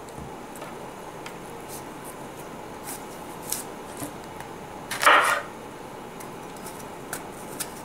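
Kitchen knife cutting a crisp Granny Smith apple over a wooden chopping board: a few scattered light taps and clicks, and one short crunch about five seconds in, the loudest sound.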